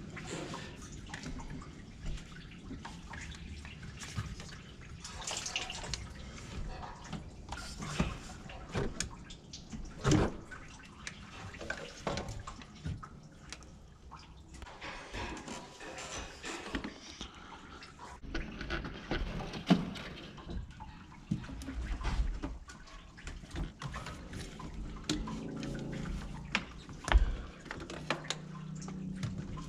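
Irregular clicks and knocks of hand tools and parts being handled while a coolant hose is unbolted from a truck's water pump, with coolant dripping.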